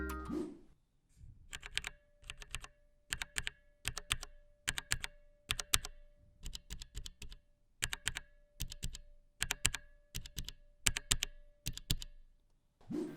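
Typing on a HyperX Alloy FPS Mechanical keyboard with Cherry MX Brown tactile, non-clicky switches: quick runs of keystrokes with short pauses between them.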